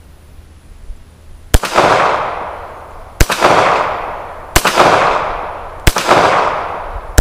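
Stallard Arms JS9 9mm pistol fired five times at a slow, steady pace, about one and a half seconds apart, each shot followed by a long echo; the last shot comes at the very end.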